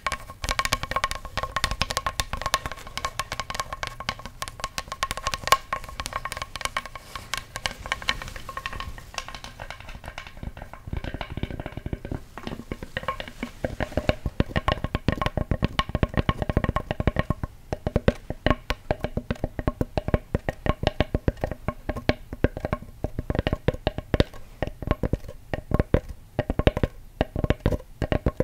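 Fast, continuous tapping on a wooden object for ASMR, the taps carrying a short pitched wooden ring.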